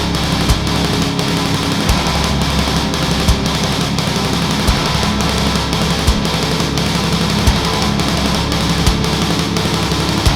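Loud heavy rock music, with a strong accent about every second and a half.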